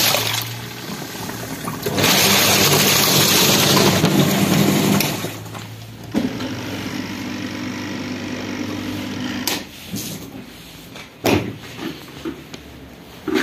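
Twin-tub washing machine's freshly replaced wash motor on its test run, the pulsator churning water in the tub: loud churning in two spells of a few seconds, then a steadier, quieter motor hum from about six seconds in. A few sharp knocks near the end.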